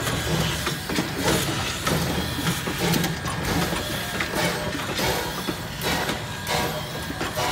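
Small tank steam locomotive, Lehigh Valley Coal Co. No. 126, working slowly, its exhaust chuffing about one and a half times a second over mechanical clanking and rattling.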